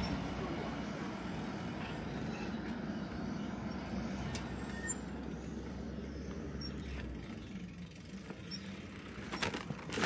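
A car passing on the road, with steady engine and tyre noise that dies away about seven seconds in.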